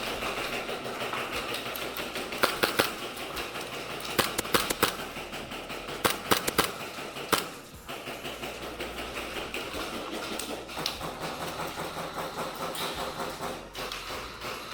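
Airsoft guns firing in several quick clusters of rapid shots, over a steady background noise.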